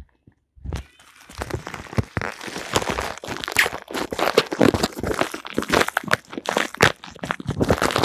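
Close, loud crinkling and crunching rustle of plastic and cloth rubbing right against the phone's microphone. It starts about a second in and is full of irregular crackles.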